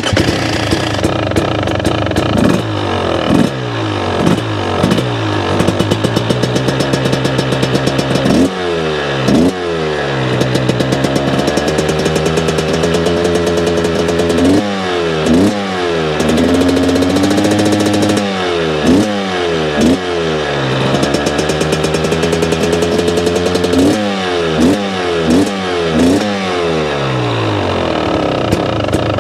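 2023 KTM 300 SX single-cylinder two-stroke motocross engine, revved in many quick throttle blips between idle. There are a few longer held revs about halfway through.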